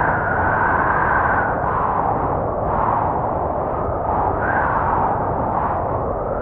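Blizzard wind blowing steadily, with a whistling howl that rises and falls in slow swells.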